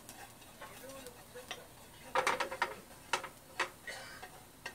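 Chopsticks scraping and tapping against a frying pan while stirring chopped onion and garlic. The result is a run of irregular clicks and knocks, busiest about two seconds in.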